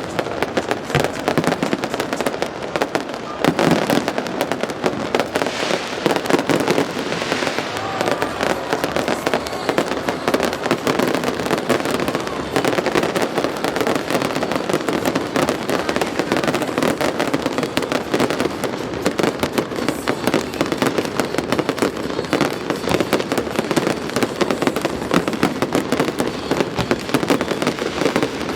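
Fireworks display: a dense, unbroken barrage of bangs and crackling shells going off in quick succession.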